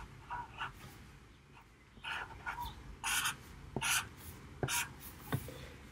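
Black Sharpie marker drawing on paper: a series of short strokes in quick succession, with a few sharp ticks in the second half.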